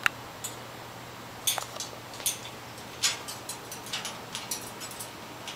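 Citron-crested cockatoo climbing the metal bars of its cage, its beak and feet making scattered light clicks and clinks on the bars, with a couple of short squeaks near the start and about a second and a half in.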